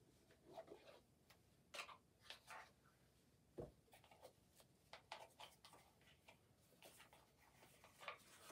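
Faint, scattered clicks, taps and rustles of a small jewellery box being opened and a pouch drawn out of it, with one louder knock about three and a half seconds in.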